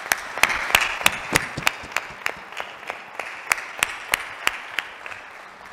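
Audience applauding, with one nearby person's claps standing out sharply about three times a second; the applause dies away near the end.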